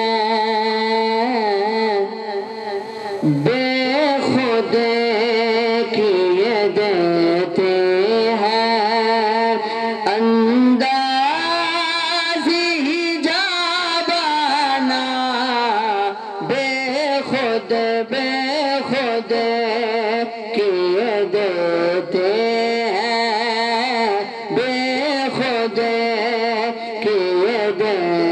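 A man's solo voice reciting the Quran in a melodic, ornamented style into a microphone, holding long wavering notes with brief pauses for breath.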